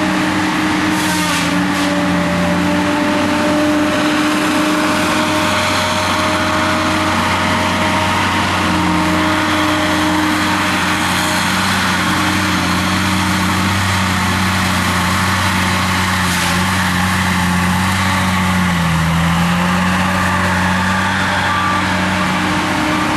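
Engine of tree-clearing machinery running steadily under load, with its pitch dipping briefly near the end.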